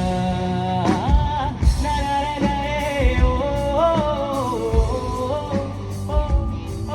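Live band playing a Bollywood song: drum kit beats under a long, bending melody line, with singing but no words picked out.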